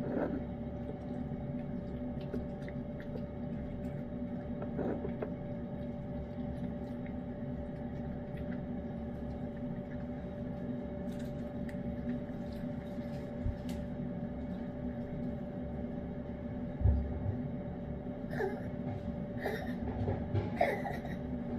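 A cat eating canned salmon pâté: faint, scattered licking and chewing clicks over a steady electrical hum, with a few louder short sounds near the end.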